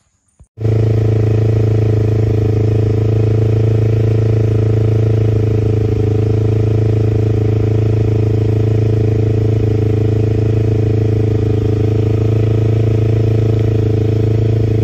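Freshly rebuilt Yamaha R25 250 cc parallel-twin motorcycle engine running loudly at a steady, unchanging engine speed on its first test run after the rebuild. It cuts in abruptly about half a second in.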